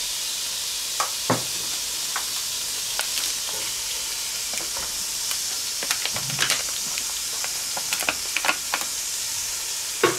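Diced bacon and Katenschinken sizzling steadily in hot oil in a cast-iron Dutch oven. Scattered clicks and scrapes, with a louder knock about a second in and near the end, come from a wooden spatula working against the pot.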